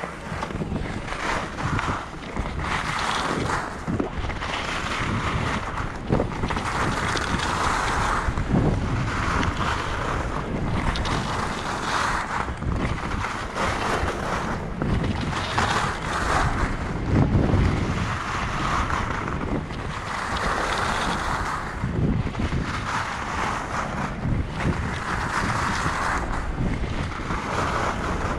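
Völkl skis scraping and hissing over packed snow in a run of linked turns, the hiss swelling about every one and a half to two seconds, with wind rumbling on the microphone.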